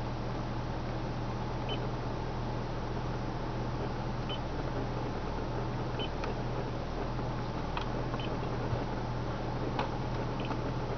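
Short high beeps from a 2003 Toyota Prius's touchscreen multi-display as its on-screen buttons are pressed, about six of them a second or two apart, over a steady low hum in the car's cabin.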